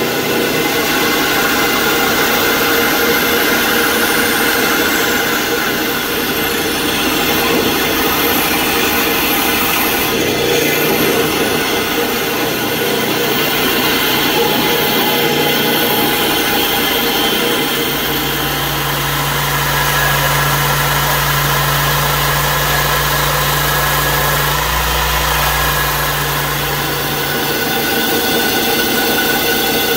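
Bandsaw running and cutting into a block of hardwood, a steady motor hum and blade noise, with a deeper hum for several seconds past the middle.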